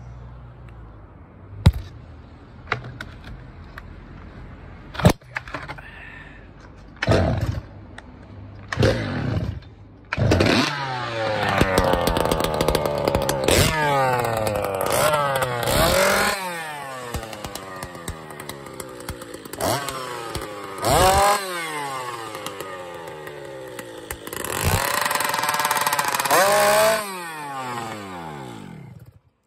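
Stihl 088 Magnum race chainsaw, a big two-stroke with an expansion-chamber pipe, being started: a few sharp pops and short sputters, then it catches about ten seconds in. It is revved hard several times, dropping back between revs, with a long high rev near the end before it falls away.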